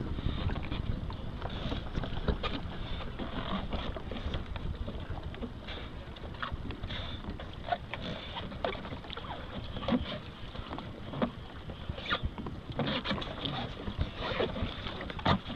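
Water sloshing and lapping against a plastic kayak hull, with scattered small splashes and knocks, as a paddler lying across the cockpit shifts his weight and turns into the seat during a paddle-float self-rescue re-entry.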